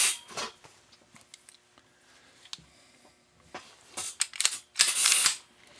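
Mechanical handling noise: a sharp clack at the start, a quiet stretch with a few faint ticks, then a cluster of louder clicks and clatters and a longer scrape about four to five seconds in.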